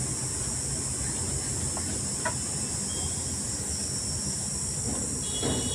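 Steady high hiss over a low hum, with one light click about two seconds in.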